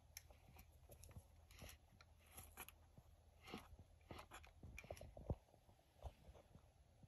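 Faint clicks, scrapes and rattles of a hand handling the nozzle and bumper of a 1975 Hoover Celebrity upright vacuum with its motor off, with one louder knock about five seconds in.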